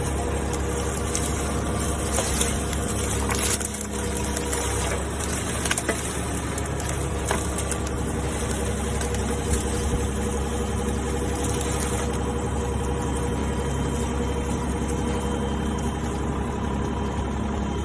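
Komatsu PC10-7 mini excavator's small diesel engine running steadily, with a few short knocks in the first half.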